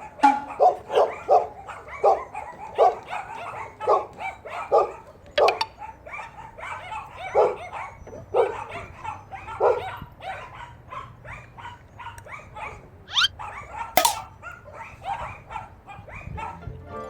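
Dog barking repeatedly in short barks, roughly one or two a second with irregular gaps. There are a couple of sharp knocks, and a brief rising squeal about thirteen seconds in.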